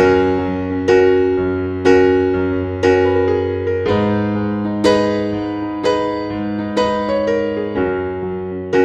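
Background music: a gentle piano or electric piano playing sustained chords, a new chord struck about once a second and fading before the next.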